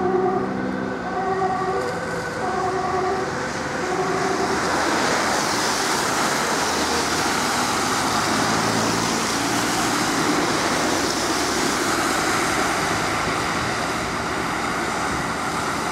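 Ambulance siren alternating between two tones, dying away within the first four seconds or so as the ambulance moves off. After that, steady road traffic noise with cars passing close by.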